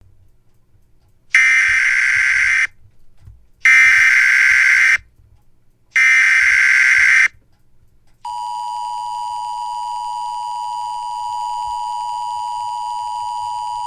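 NOAA Weather Radio test alert: three buzzy bursts of about a second each, the coded SAME data header, followed by the steady, high warning alarm tone for about six seconds.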